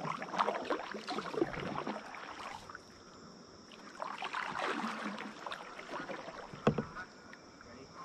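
Kayak paddle strokes in the water: splashing and dripping off the blade in two spells of a couple of seconds each, then a single sharp knock near the end.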